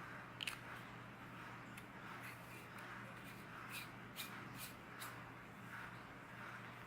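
Faint handling noises from a Sofirn SC31 flashlight being turned over in the hands: light rubbing and about six small clicks, over a steady low hum.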